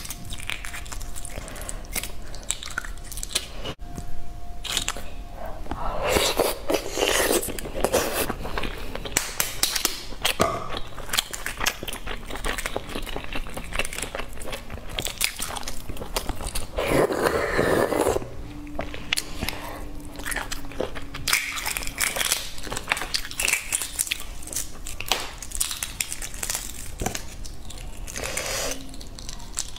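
Close-miked crackling of boiled eggshells being cracked and picked off by fingers, many small sharp clicks, with bursts of chewing and biting on egg in between.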